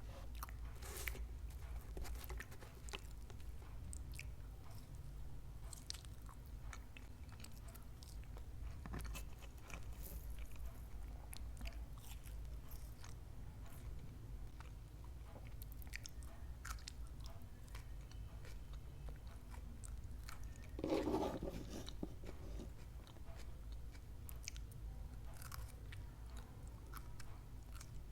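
A person chewing and biting crunchy food close to the microphone, with many small crackles and crunches. There is one louder, lower-pitched crunch or thud about three quarters of the way through.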